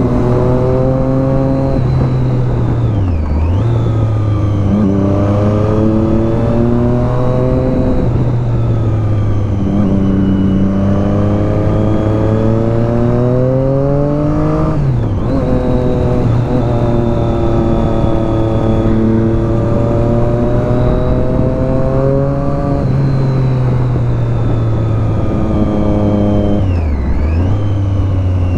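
Motorcycle engine under way, revs climbing and falling back repeatedly as the bike accelerates and changes gear, with brief sharp drops in engine note about three seconds in, around fifteen seconds and near the end.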